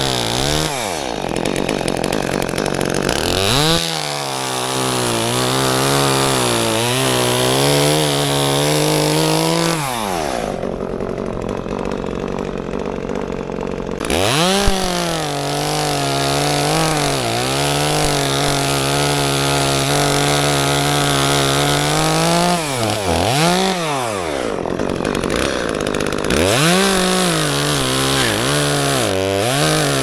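Two-stroke chainsaw cutting through dead plum wood, its engine pitch sagging under load and revving back up again and again. For a few seconds about a third of the way in, it eases off to a lower, quieter run before revving up again.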